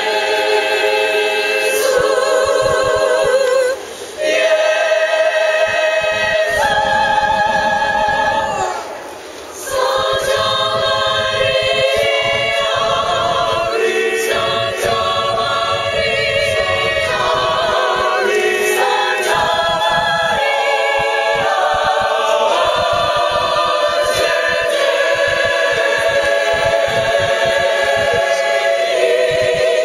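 Mixed-voice high school choir singing a cappella in harmony, with sustained held notes and short breaks between phrases about four and nine seconds in.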